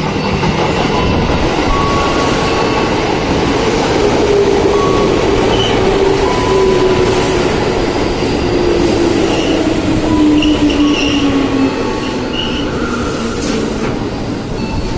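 Twelve-car electric commuter train pulling into the platform and braking. A motor whine falls steadily in pitch as it slows, over a rumble of wheels on rail, with short high brake and wheel squeals.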